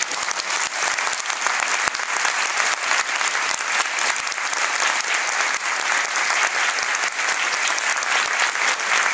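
Stadium crowd of football supporters applauding: dense, continuous clapping from many hands that holds steady throughout.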